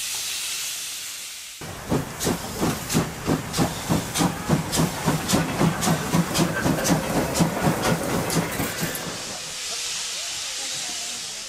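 Steam locomotive hissing steady steam. About two seconds in it is working with regular exhaust chuffs, about three to four a second, that fade back into a steady hiss of steam near the end.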